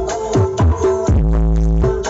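Electronic dance music played loud through a large 'horeg' sound system for a sound check: punchy kick drums and long, deep bass notes, each held about half a second, twice.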